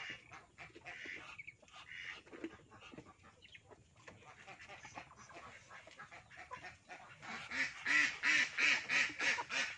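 Poultry calling: scattered calls at first, then a loud rapid series of repeated calls, about three or four a second, in the last two seconds.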